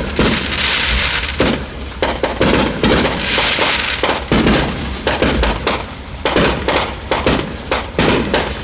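Aerial fireworks display: a rapid run of shell bursts and bangs throughout, with two stretches of hiss.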